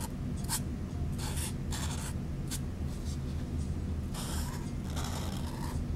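Felt-tip marker drawing on a paper cup: a run of short, scratchy strokes, some quick and some drawn out, as small leaves are added beside swirled flowers. A steady low hum runs underneath.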